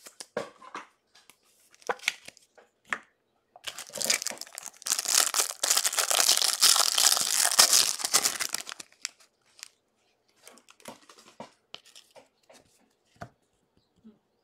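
Foil wrapper of a trading-card pack being torn open and crinkled by hand: a dense crackling rustle from about four to nine seconds in. Scattered light clicks and rustles of handling come before and after.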